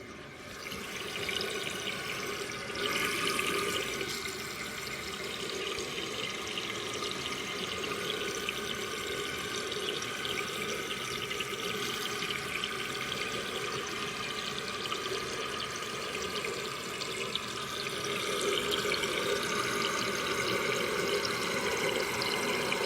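1999 Kohler Wellworth toilet tank refilling: water hissing steadily through the fill valve, with a higher rush that grows louder about three seconds in.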